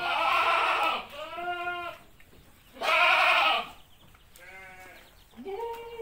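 Peranakan Etawa (Etawah crossbred) goat bleating about five times, each bleat under a second long. The first bleat and the one about three seconds in are the loudest.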